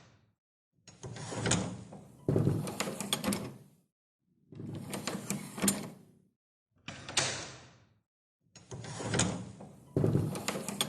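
Door handle being turned and let go, the latch rattling and clicking, four times over with silent pauses between; the first and last turns run in two steps, and the third is short with a sharp click.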